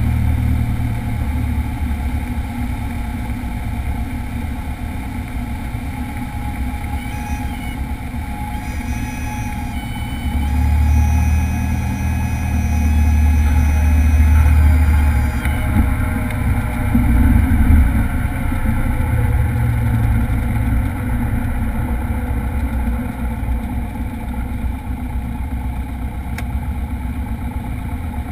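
Single-engine light airplane's piston engine and propeller running at low landing power, heard from inside the cockpit as a steady low drone. The rumble swells for several seconds around the middle, and a thin high tone sounds on and off over the same stretch.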